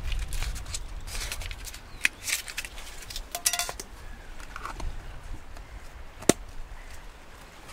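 Objects being handled at close range: a run of irregular clicks, taps and clatters, with a short ringing clink about three and a half seconds in and one sharp click near the end.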